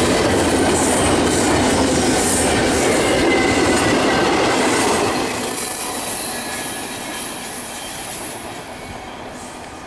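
Double-stack intermodal container train running past at about 50 mph: a dense rumble and rattle of wheels on rail with a thin high squeal. It fades from about five seconds in as the last cars go away.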